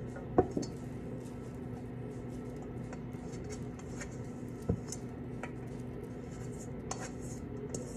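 Faint scraping and rubbing of hands shaping falafel mixture, over a steady low hum. There is a sharp knock about half a second in and a lighter one near five seconds.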